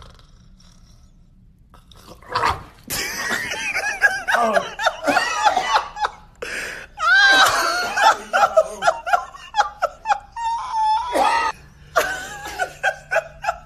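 Quiet for about two seconds, then a sudden noise, then loud laughter breaking out in choppy bursts with swooping pitch to the end.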